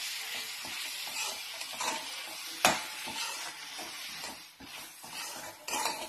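Chopped vegetables with spices sizzling in hot oil in a pan as they are stirred, with the utensil scraping and knocking against the pan. There is one sharp knock about two and a half seconds in. The sizzle thins toward the end.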